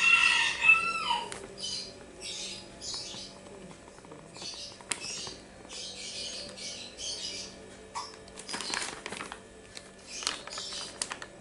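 Plastic bag of rice flour crinkling in clusters of short crackles as it is handled and tipped to pour flour into a bowl, with a brief high squeak right at the start.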